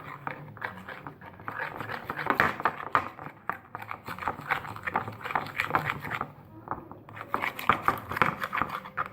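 Stirring a thickening shampoo-and-salt slime in a small bowl: rapid, irregular scraping and clicking, with a short pause about six seconds in.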